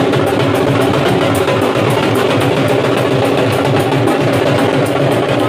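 Several Punjabi dhols played together with sticks, a loud, fast, driving beat of sharp strokes over deep booming bass hits that keeps going without a pause.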